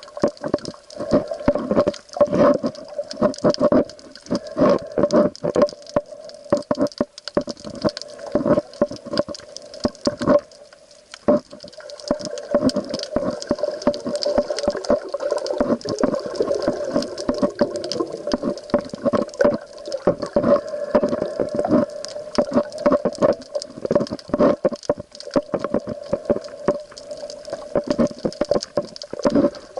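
Sea water sloshing and bubbling around the camera, with dense irregular knocks and clicks over a steady hum, and a brief lull about ten seconds in.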